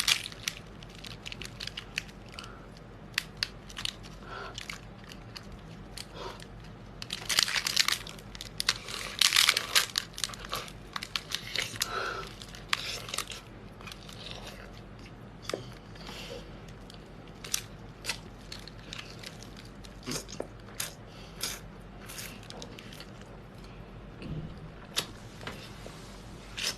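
A person eating close to the microphone: wet chewing with sharp crunches and tearing bites, densest in a run of crunching about a third of the way in.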